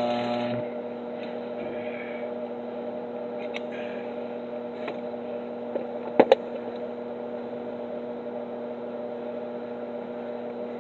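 Stick-welding arc with a 7018 rod crackling, cutting off just after the start as the pass is broken off, leaving the steady electrical hum of the arc welder. Two sharp clicks about six seconds in.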